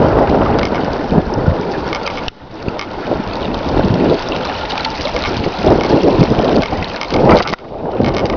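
Wind buffeting the camera microphone in loud, uneven gusts over the rush of a shallow stream running over stones. The noise drops away sharply for a moment twice.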